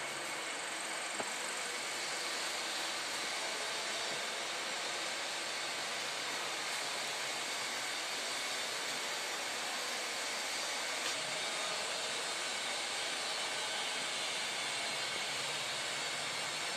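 Steady rushing background noise of a large machine shop, with no machine in view running, and a faint tick about a second in and another near eleven seconds.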